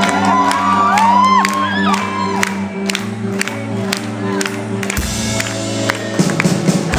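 Live rock band playing held keyboard chords over a steady beat while the concert crowd whoops and cheers; about five seconds in a bass line comes in and the band fills out.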